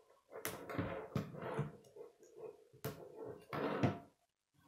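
K'nex plastic pieces clicking and rattling as connectors and rods are snapped together and handled, a series of sharp clicks with a louder clatter near the end.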